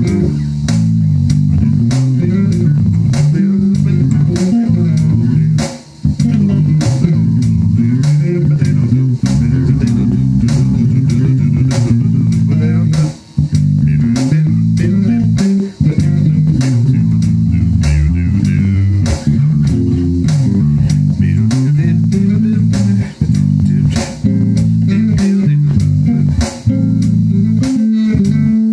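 Electric bass played fingerstyle: a continuous line of changing low notes with a few short breaks. Under it runs a steady drum beat of about two hits a second.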